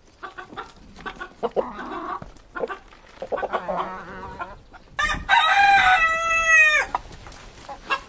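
Chickens eating: a run of quick pecking clicks with soft clucking. About five seconds in, a rooster crows loudly for roughly two seconds, the call dropping in pitch at its end.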